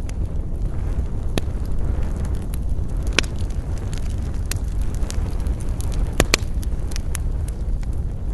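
Wood campfire crackling, with scattered sharp pops over a steady low rumble. The loudest pop comes about three seconds in, and a quick double pop follows a little after six seconds.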